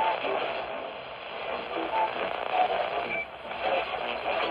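Receiver audio from an AM broadcast station on a ham radio: steady static hiss with faint, broken traces of the programme and a few short whistling tones.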